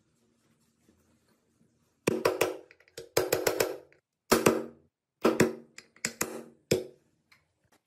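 A metal part being struck in quick runs of taps, several strikes to a run, each strike ringing. The runs start about two seconds in and continue to near the end.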